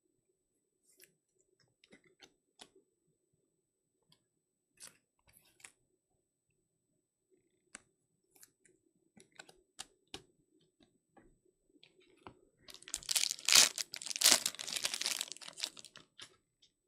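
Scattered light clicks and taps of trading cards being handled, then, about thirteen seconds in, a few seconds of loud crinkling and tearing as a plastic trading-card pack wrapper is ripped open.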